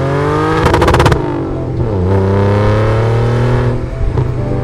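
Car engine accelerating hard, its pitch climbing, with a rapid rattle of pops about a second in. The pitch drops and climbs again about two seconds in, as at a gear change, and near the end the engine eases off into a rough, crackling burble.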